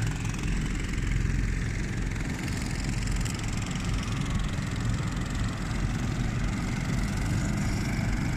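Boat engines running steadily as a long line of tour boats moves along the river, a low, even drone.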